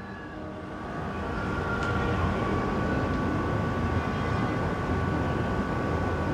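Steady low rumbling background noise that swells about a second in and then holds, with a faint steady hum running through it.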